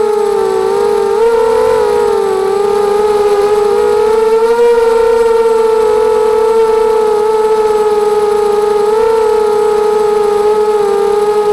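ZMR250 racing quadcopter's brushless motors and propellers whining steadily, the pitch wavering slightly up and down as the throttle changes in flight.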